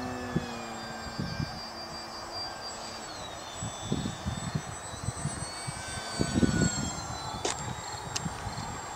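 Electric motor and propeller of a HobbyKing Tundra RC plane whining high and steady from a distance, the pitch dropping about three seconds in as the throttle eases. Irregular low rumbles of wind on the microphone run underneath, and two short clicks come near the end.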